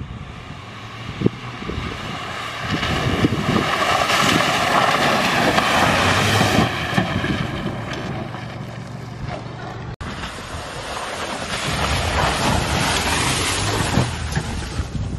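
Holden Colorado ute's engine revving as it drives through muddy puddles, with water and mud splashing and wind buffeting the microphone. The engine sound swells over the first half, and the sound changes abruptly about ten seconds in.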